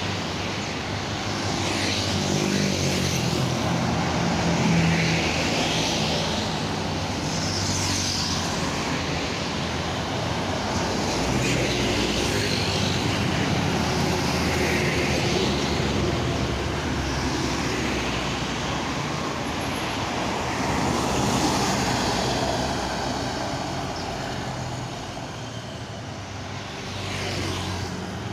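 Road traffic passing close by on a highway: motorcycles, cars and trucks, a steady engine hum with tyre noise that swells and fades as each vehicle goes past.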